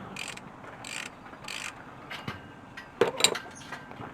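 Hand ratchet wrench being worked on a bolt in the engine's timing-chain area: a few short ratcheting strokes about half a second apart, then a sharp metallic clatter about three seconds in.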